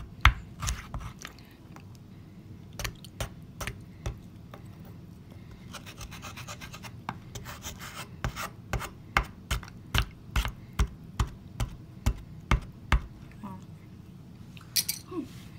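Small plastic hammer tapping and scraping at soaked, softening toy excavation bars in a glass baking dish: quick, irregular taps, with a stretch of scraping about six seconds in.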